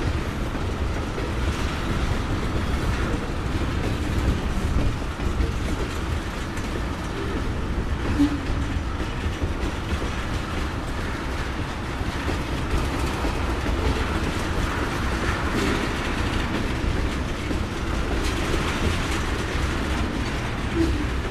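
Loaded crude-oil tank cars of a freight train rolling past, a steady rumble with the wheels clicking over rail joints. There are a couple of brief squeaks, one about eight seconds in and one near the end.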